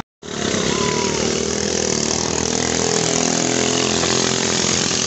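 Small longtail race-boat engines (ketinting, 6.5 hp class) running hard as boats speed along the river: a loud, steady engine drone whose pitch wavers slightly.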